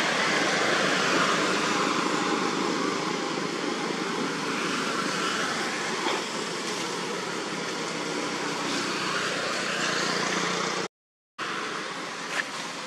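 Steady rushing outdoor background noise, with no clear calls or voices. It drops out completely for half a second about eleven seconds in, and a short click follows soon after.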